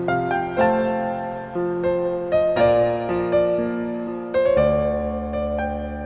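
Background score: a slow piano piece, a melody over chords, with a new note or chord struck about every half second and each one fading away.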